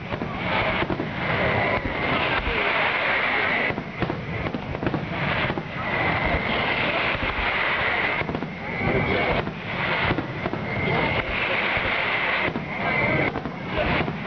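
Fireworks display: aerial shells bursting one after another in a dense, unbroken barrage, with crackling between the bangs.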